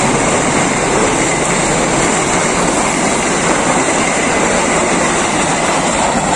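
Argo Wilis express passenger train's carriages passing at speed, a loud, steady rush of wheels on rail.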